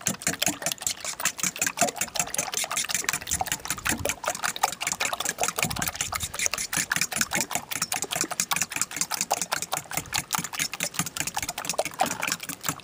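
Metal fork beating raw eggs in a stainless steel bowl: rapid, steady clicking of the fork against the bowl with a wet sloshing, stopping shortly before the end.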